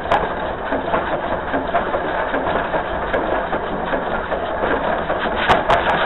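Dollywood's No. 192 narrow-gauge steam locomotive running along the track, heard from on board, with steady mechanical clatter and a few sharp clicks near the end.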